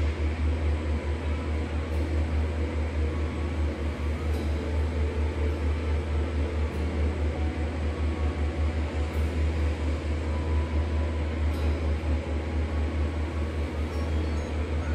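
Steady low machine hum with a quick fluttering pulse, like a fan motor running in the room.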